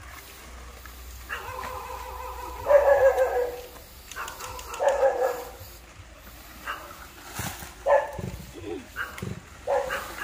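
Several short, pitched animal calls, the first drawn out for more than a second and the rest brief, over a faint low hum.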